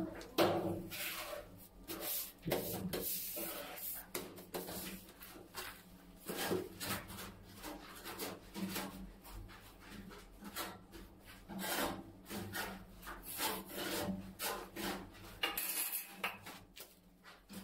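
Trowel scraping cement tile adhesive in many short, irregular strokes.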